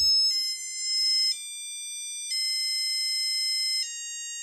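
ImpulseRC Apex LR7 FPV drone's ESCs playing their custom startup tune through the motors on power-up: a slow melody of clean, beeping held notes, each changing pitch about once a second, after a short thump as the battery is plugged in.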